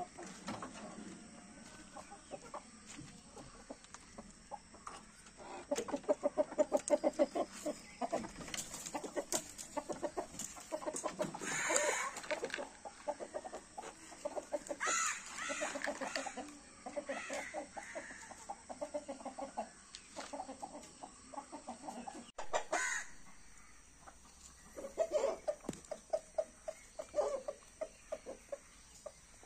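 Backyard flock of hens and a rooster clucking in quick runs, with a few louder, higher calls among them: excited chickens let out of the coop and rushing for food.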